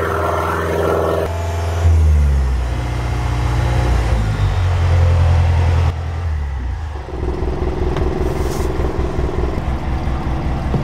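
Yanmar marine diesel engine of a sterndrive boat running at low revs, around idle. Its note changes a few times, turning into a quick, even low pulsing in the second half.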